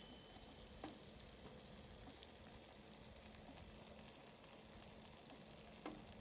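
Near silence: a faint steady hiss with two soft ticks, one about a second in and one near the end.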